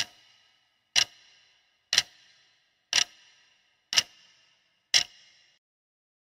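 Clock ticking sound effect: six sharp ticks, evenly one a second, each followed by a brief ring.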